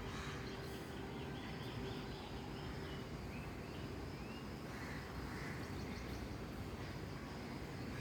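Birds calling outdoors, with a quick run of short notes about one to two seconds in and a short rising call a little later, over a steady low rushing noise.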